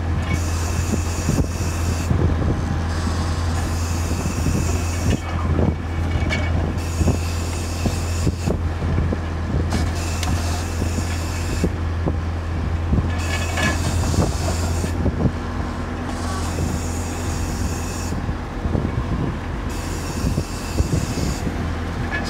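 Compressed-air well-drilling rig at work: the Holman compressor's engine drones steadily while the drill knocks irregularly, and an air hiss cuts in and out every few seconds.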